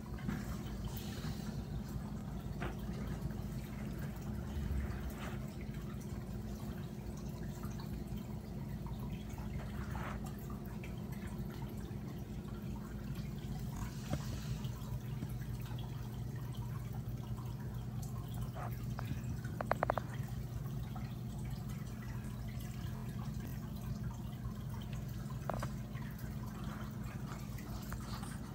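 Aquarium filter and air bubbler running: water dripping and bubbling over a steady low hum, with scattered light clicks.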